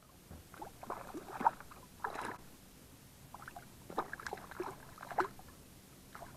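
Hooked trout thrashing at the water's surface beside the boat: irregular splashes in clusters, the sharpest about a second and a half in and again near five seconds.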